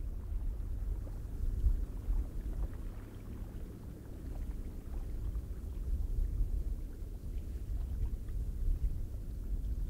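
Low, rumbling wind noise that rises and falls in uneven gusts.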